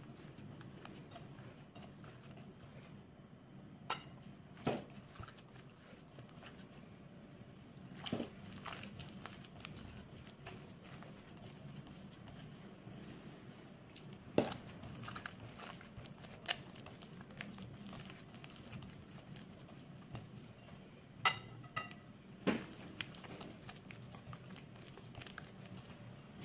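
Hands working a crumbly flour-and-oil dough in a glass bowl, with scattered sharp taps of fingers and the small glass against the bowl, over a low steady hum.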